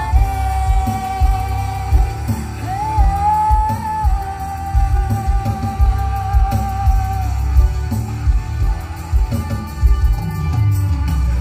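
Female singer holding one long note with light vibrato for about seven seconds, bending up briefly around three seconds in, over a live band with drum kit through a concert sound system.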